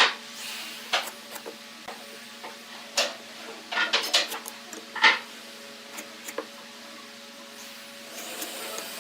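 Wood lathe running with a steady hum while a turning tool cuts the spinning wood in short scraping strokes, several close together around the middle and fewer towards the end.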